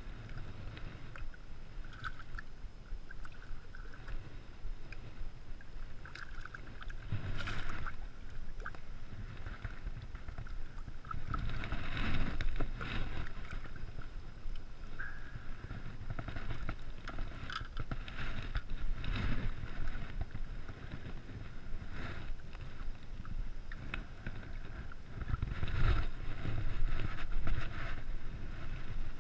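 Water splashing and sloshing as a hooked smallmouth bass is landed by hand in shallow water. There are louder splashes several times.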